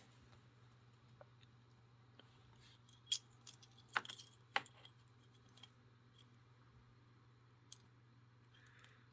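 Small metal clicks and a light jingle from handling a Yale 70mm discus padlock and its lock picks: the loudest click about three seconds in, then two more about a second and a second and a half later, with a few fainter ticks after. A faint steady low hum sits underneath.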